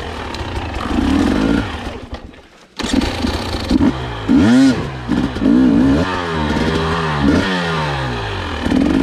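Husqvarna enduro dirt bike engine running with repeated throttle blips, the revs rising and falling each time. About two seconds in the sound sags away almost to nothing, then comes back abruptly and the blips go on.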